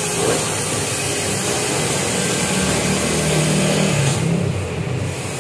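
A motorcycle engine running in the background of an exhaust workshop, with a brief rise in revs around the middle before it settles back.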